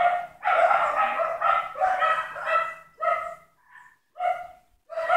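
A dog barking over and over, in quick runs for the first few seconds and then more slowly.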